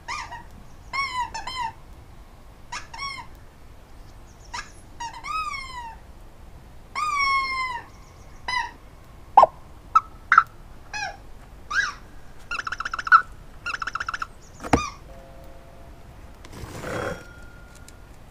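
An animal's short, high, whining calls, repeated many times, some rising and then falling in pitch. Around the middle they turn into two quick runs of rapid pulsed calls. A couple of sharp knocks and a brief rustle come through as well.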